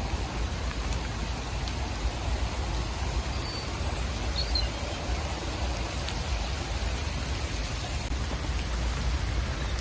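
Heavy rain pouring down steadily, with a steady low rumble underneath.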